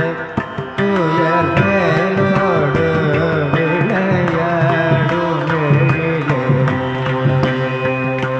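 Carnatic-style Tamil devotional song in raga Behag, khanda chapu tala: a sung melody gliding in pitch over a steady drone, with regular hand-drum strokes.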